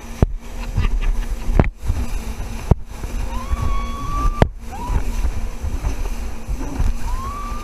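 A woman screaming on a moving jet ski: a long, high held scream about three seconds in, a short one about a second later, and another starting near the end. Underneath are the steady hum of the jet ski's engine, water sloshing and slapping, and several sharp knocks from wind and spray hitting the microphone.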